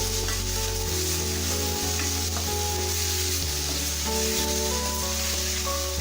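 Chicken pieces in sauce sizzling in a pan on the flame while being stirred, with a few light clicks. Soft background music with held notes plays underneath.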